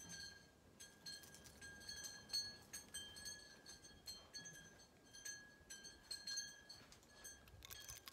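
Faint chiming: high, ringing metallic notes struck over and over at irregular moments, mostly on one pitch with a few others mixed in.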